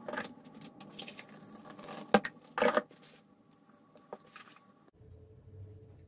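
Coffee being poured into a ceramic mug, with a sharp clink about two seconds in and a short louder burst just after; a low hum comes in near the end.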